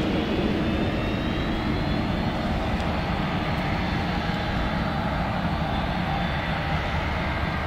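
Jet airliner's engines running, a steady rumble with a thin high turbine whine that slowly rises in pitch, easing off slightly in loudness.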